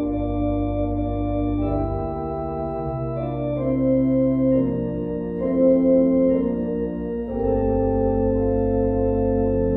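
Organ playing slow sustained chords over a held bass line, the chord changing every second or two.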